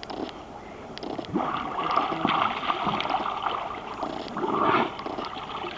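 Swimming-pool water splashing and sloshing as swimmers move through it close by. It gets much louder about a second and a half in and keeps coming in irregular surges.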